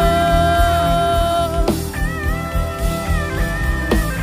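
Live band music: a lead electric guitar holds long notes that bend and slide, over bass and drums keeping a steady beat.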